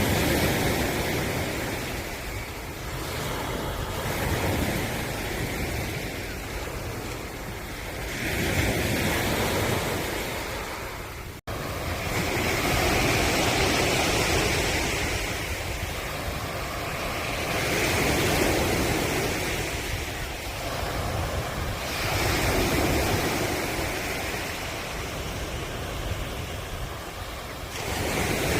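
Ocean waves breaking and washing onto the shore, the surf swelling and falling back every four to five seconds. A split-second gap in the sound about eleven seconds in.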